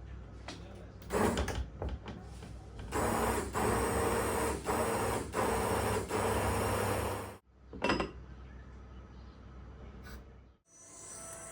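A few knocks of kitchenware, then a small electric kitchen appliance motor running in about four short pulses for some four seconds before stopping.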